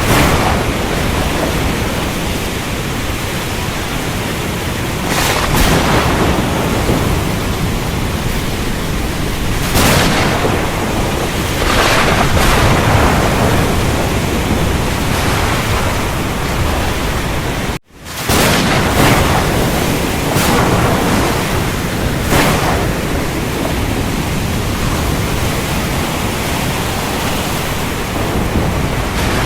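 Steady rain with several swells of thunder rising out of it. The sound cuts out for an instant about two-thirds of the way through, then resumes.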